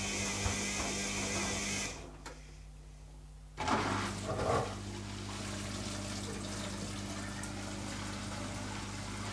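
Zanussi ZKN7120L washing machine moving water, with a steady hiss of flowing water over an electrical hum. The water cuts off about two seconds in, then comes back with a sudden gush a second and a half later and settles into a lighter, steady flow.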